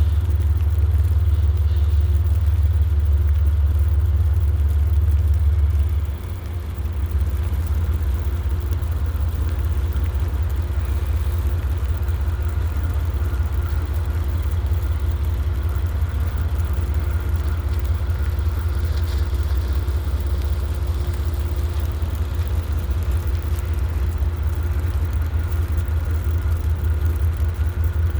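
An engine idling: a steady low rumble that drops a little and changes about six seconds in, with faint steady tones above it.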